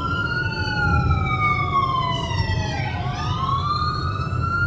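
A wailing emergency siren, its pitch falling slowly for about two seconds and then rising again, heard over the steady rumble of the car's road and engine noise inside the cabin.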